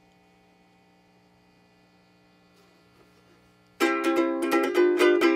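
Box-bodied electric ukulele strummed: a quick run of about ten chord strokes starting nearly four seconds in, the chords ringing on. Before that only a faint steady hum.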